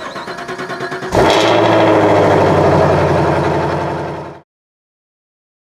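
An engine cranking on the starter with a pulsing rhythm, then catching about a second in and running at a steady speed. It fades slightly and then cuts off suddenly.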